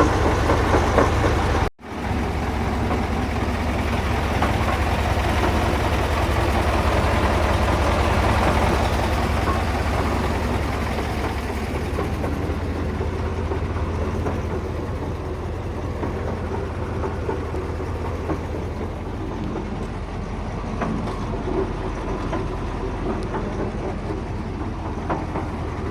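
KamAZ truck's diesel engine and drivetrain running steadily with a low rumble, easing slightly about halfway, during a drive to listen for a knock suspected in a drive-axle reducer.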